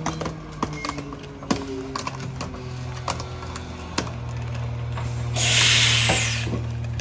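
Rear-loader garbage truck's diesel engine running as it creeps along, with scattered clanks and rattles from the body. About five seconds in, a loud hiss of air from the air brakes lasts about a second.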